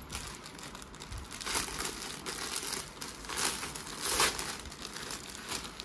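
Clear plastic clothing bag crinkling and rustling as it is handled, with louder rustles about a second and a half in and again around three and a half and four seconds in.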